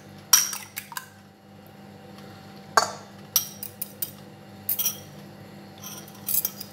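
A metal fork clinking against a ceramic bowl of beaten egg: several quick clinks in the first second, then scattered single clinks and taps as the egg is poured and scraped out over the cauliflower. A steady low hum runs underneath.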